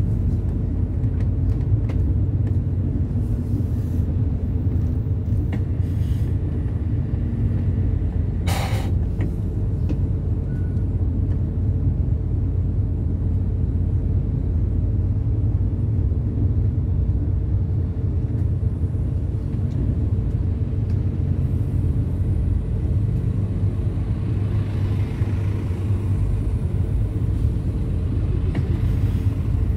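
Steady low rumble of a vehicle on the move, engine and road noise together, with a brief sharp noise about eight and a half seconds in.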